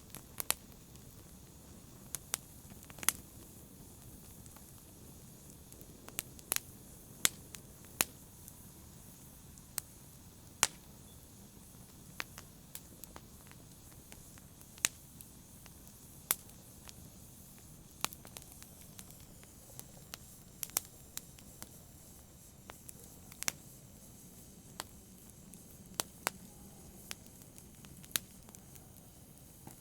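Wood fire crackling: sharp pops scattered irregularly, about one or two a second, over a low steady hiss of burning.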